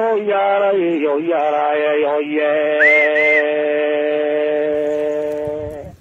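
A man's voice chanting, wavering at first and then holding one long steady note for about four seconds before fading out. Two short high chirps sound about halfway through.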